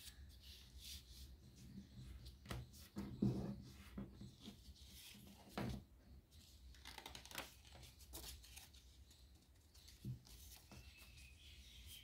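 Faint rustling and creasing of a sheet of origami paper being folded and pressed flat by hand, with a few louder crackles about three and five and a half seconds in.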